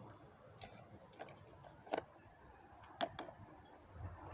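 A few sharp light clicks and taps from handling a large plastic syringe and water jug, two louder clicks about a second apart in the middle, over a quiet background.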